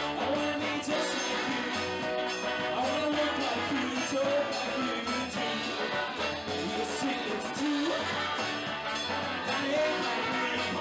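Small live swing band playing: trumpets and clarinet on the melody over a walking upright double bass and guitar, with a steady beat throughout.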